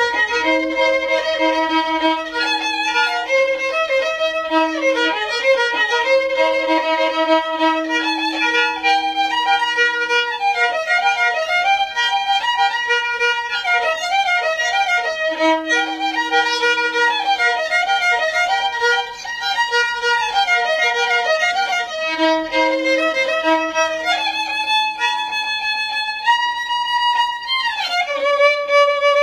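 Solo violin playing a Negritos dance melody from Castrovirreyna in the Peruvian Andes, an ornamented tune that runs on without a break. In several stretches a lower note is held under the tune.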